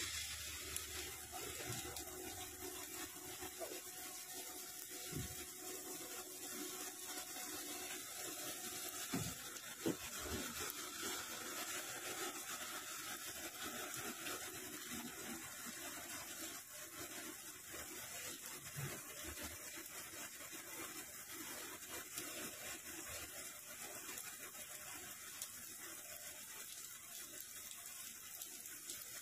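Flood coolant spraying and splashing inside the enclosure of a Nakamura-Tome TW-20 CNC lathe as it turns a part: a steady hiss, with a few faint knocks about 5 and 10 seconds in.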